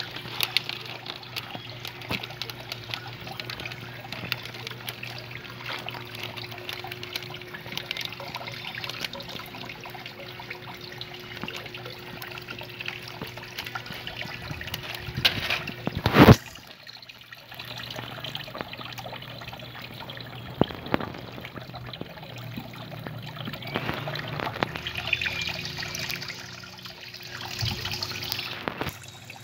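Water trickling steadily, with a low steady hum beneath it. One loud sharp knock about sixteen seconds in.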